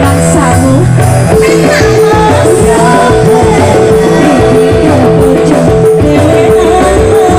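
Loud amplified live band music with a woman singing into a microphone over electric keyboard accompaniment.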